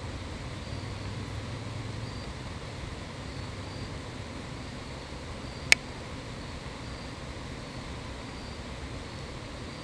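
Steady outdoor background hiss with a faint high tone that comes and goes, and one sharp click a little past the middle.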